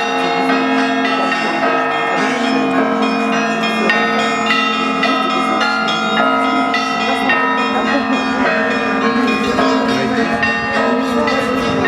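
Russian Orthodox church bells being rung: smaller bells struck in quick, continuous patterns over the long, steady ring of a lower bell.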